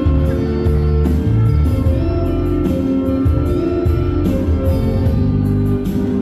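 Background music with sustained notes over a strong, steady bass line.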